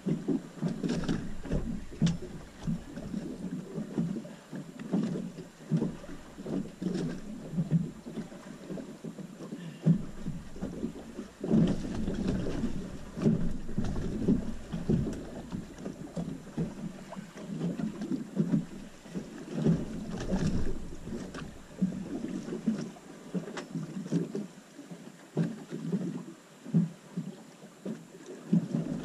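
Waves slapping and splashing irregularly against the hull of a small 21-foot pilothouse boat drifting at sea.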